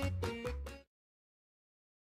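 Music with melody notes over pulsing bass, fading out a little under a second in, then dead silence.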